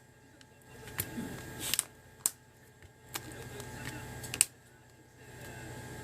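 A few sharp, separate clicks and light taps, about four in six seconds with a brief rustle between, from a phone and small tools being handled during a screen repair, over a low steady hum.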